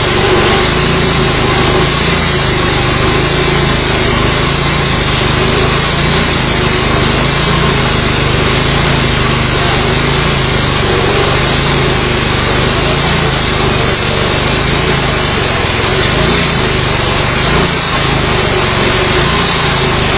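Engine-driven abrasive rail cutter grinding steadily through a steel rail, its small engine running under load beneath the harsh, even grinding of the disc.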